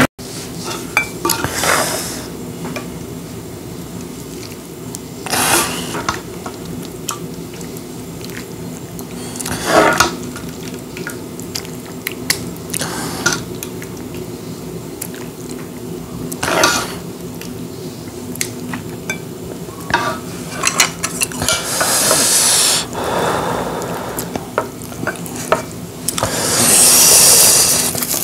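Tableware being handled: a wooden spoon scooping from an earthenware pot and knocking against the pot and bowls, with scattered clinks and several short scraping or rustling bursts, the longest near the end. A faint steady hum runs underneath.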